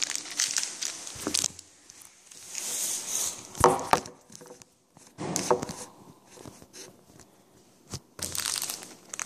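Foil booster-pack wrapper crinkling and tearing as it is opened, in several rustling spells, with a few sharp knocks of handling in between.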